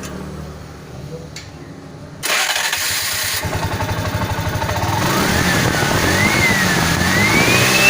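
TVS King three-wheeler engine started about two seconds in, then running and revved up, with a whine rising and falling in pitch and the sound growing louder toward the end.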